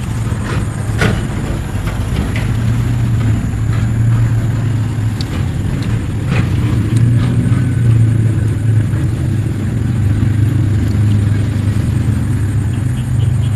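A steady low engine drone, with scattered light clicks over it.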